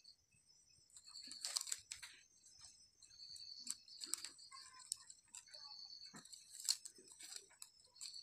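Plastic wire rustling and clicking faintly as it is handled and pulled into knots by hand, with a few sharper clicks as the strands snap against each other.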